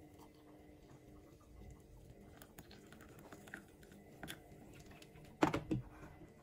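Hot water trickling faintly from a stainless steel electric kettle into a ceramic mug, then the kettle set back down on its plastic base with a few clunks about five and a half seconds in.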